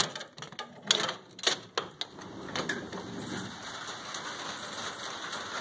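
Metal clicks and clunks from a camper shell's rear-window T-handle latch being turned and the glass hatch lifted, a few sharp ones in the first two seconds. After that comes a steady hiss of rain.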